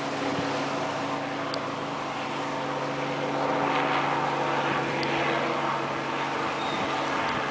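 A steady engine hum over wind and water noise, the rushing swelling about halfway through; the hum stops near the end.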